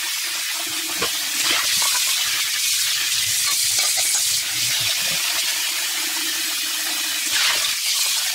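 Tap water running steadily into a stainless steel sink as jasmine rice is rinsed, with a few small knocks from the rice and sieve being handled.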